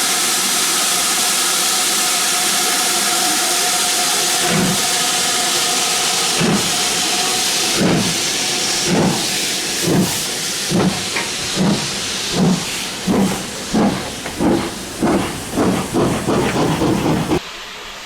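Steam locomotive starting away under a loud hiss of steam, with a steady tone sounding through the hiss for the first several seconds. From about four seconds in its exhaust beats begin slowly and quicken to about two a second, before the sound cuts off sharply near the end.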